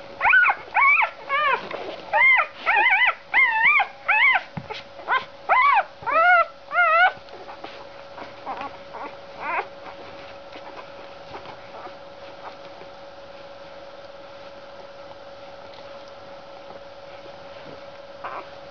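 Newborn Dalmatian puppies squealing and whimpering while nursing: about a dozen high, short cries, each rising then falling in pitch, roughly two a second, fading to a few faint squeaks after about seven seconds. A steady faint hum runs underneath.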